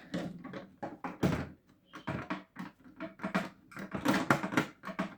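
Plastic casing of a toy washing machine being handled and pried apart after its screws are out: a run of irregular clicks and clacks.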